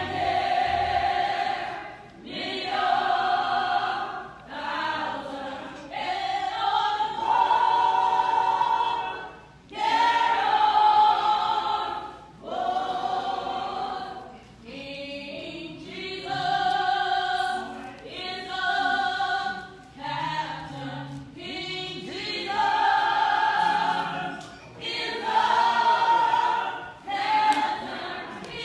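Church choir singing, in phrases about two seconds long with short breaks between them.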